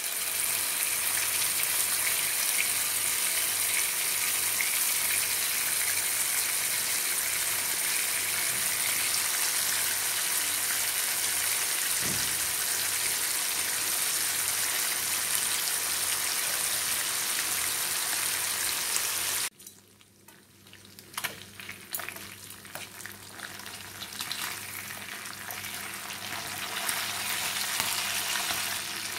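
Korameenu (snakehead murrel) fish steaks shallow-frying in hot oil in a nonstick pan: a steady sizzling hiss. About two-thirds of the way in it drops off suddenly, then comes back quieter with scattered crackles and pops.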